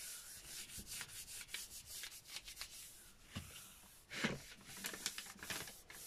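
Palms rubbing and smoothing a sheet of drawing-pad paper over a gel printing plate: soft, dry, scratchy swishing in uneven strokes, burnishing the paper to lift the leftover paint off the plate.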